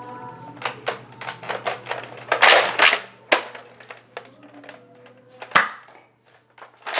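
Foam-dart blaster, the Raptor Strike, being handled and fired: a string of plastic clicks, then a short loud burst about two and a half seconds in, and a single sharp snap later on.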